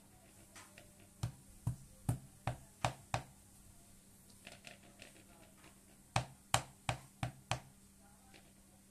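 Knife chopping on a cutting board: two runs of sharp, evenly spaced strokes, about six in the first and five more a few seconds later.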